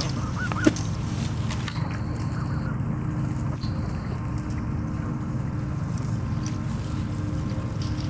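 Canada geese honking now and then over a steady low rumble, with one sharp click less than a second in.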